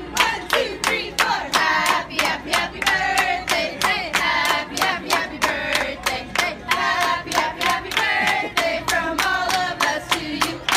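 A group of people clapping in a steady rhythm, about three claps a second, while singing a chant together.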